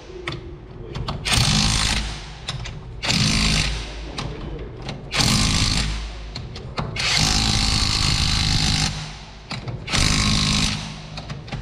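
Impact wrench run in five short bursts, each a second or two long, spinning on and tightening the wheel nuts one after another.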